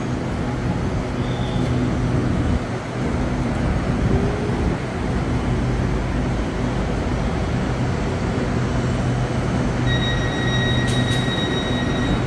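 SRT Red Line electric commuter train standing at the platform with its doors open, its onboard equipment humming steadily. About ten seconds in, a steady electronic beep sounds for about two seconds.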